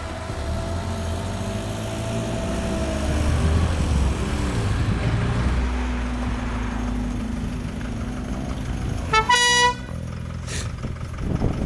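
An old Mk2 ambulance's engine running as it drives along the road, with one short, loud horn toot about nine seconds in.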